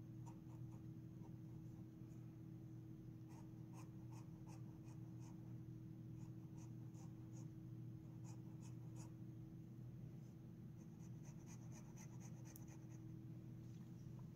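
Fountain pen with a Jowo nib writing on notebook paper: faint, quick strokes of the nib in short runs as rows of squiggles are drawn. The nib gives a soft feedback, not scratchy.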